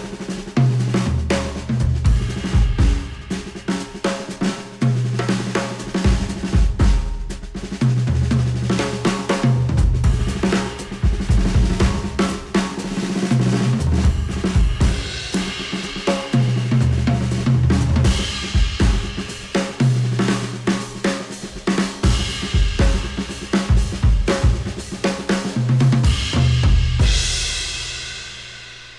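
Instrumental music with a full drum kit and a deep repeating bass line, played through headphones and picked up by measurement microphones at the earcup; the track fades out near the end.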